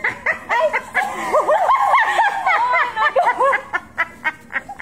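Women laughing hard, high-pitched and overlapping, ending in short rhythmic 'ha-ha' pulses near the end.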